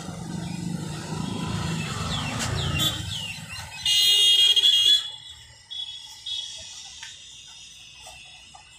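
Low rumble of passing traffic, then a shrill vehicle horn sounding steadily for about a second, the loudest sound, cutting off abruptly. A few short falling bird chirps come just before the horn.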